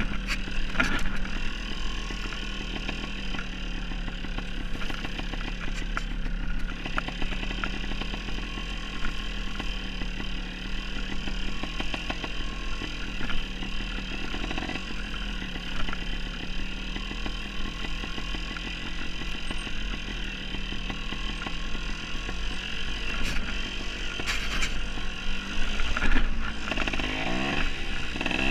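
Dirt bike engine running steadily while riding a rough, rocky trail, with scattered knocks and rattles over the bumps. The revs rise and fall a couple of seconds before the end.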